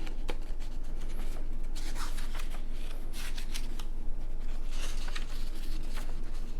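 Pages of a well-worn reference book being turned and rustled, with a steady low hum underneath.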